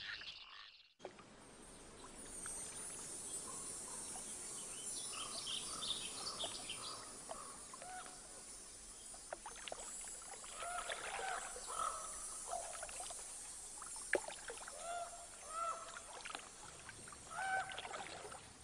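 Birds chirping in short, repeated, arching calls over a steady outdoor hiss, with a few faint clicks.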